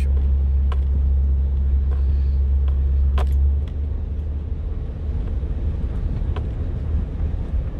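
Car driving over a dirt off-road trail, heard from inside the cabin with the windows down: a steady low rumble of engine and tyres, with a few sharp knocks and rattles from the bumps. The rumble eases a little partway through.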